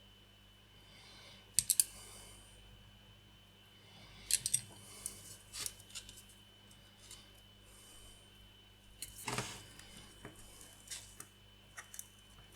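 Light clicks and taps of small plastic model-kit parts and tools being handled while a bracket is glued in place: a quick group of clicks, a cluster a few seconds later, and a short scrape about nine seconds in.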